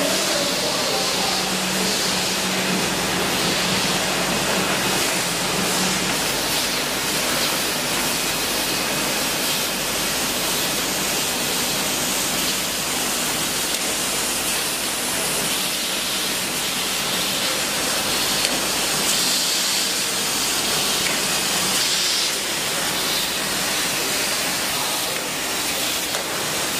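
Steady hissing noise of a running can packaging line's machinery, with a low hum that fades out about six seconds in.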